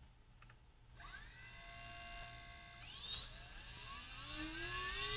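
Small brushless motor without a propeller, driven by a home-built electronic speed controller, spinning up: a whine of several tones starts about a second in and rises in pitch, with a jump at about three seconds, growing louder as it speeds up.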